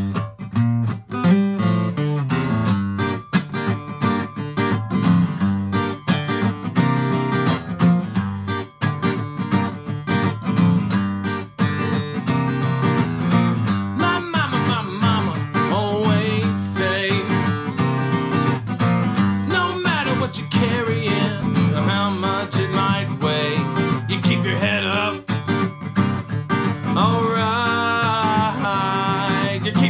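Acoustic guitar strummed in a steady rhythm, with a man's voice joining in singing about halfway through.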